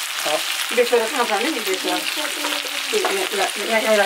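Chicken sizzling as it fries in a pan, with stirring. A wavering pitched sound rises over it twice: about a second in and again from about three seconds.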